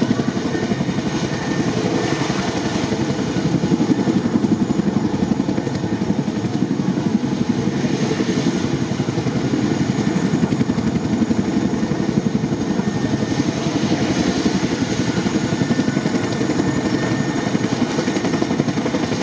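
CH-47J Chinook tandem-rotor transport helicopter running on the ground, its rotors and turbines making a loud, steady, fast rotor beat.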